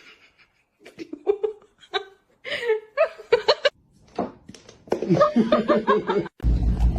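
Human laughter in short broken bursts, growing louder and more continuous over several seconds, then cut off abruptly by a steady low rumble near the end.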